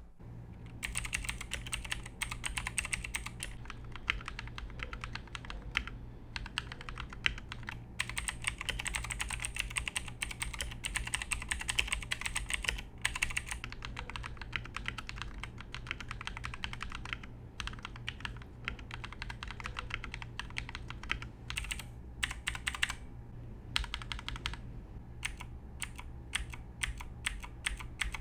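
Redragon Kumara mechanical keyboard being typed on in quick continuous runs of key clicks for a switch sound test, with a few short pauses.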